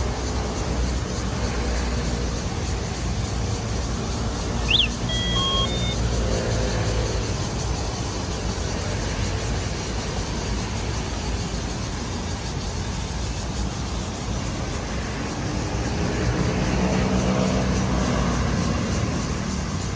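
Road traffic running steadily, with a vehicle swelling louder near the end. A brief high chirp about five seconds in.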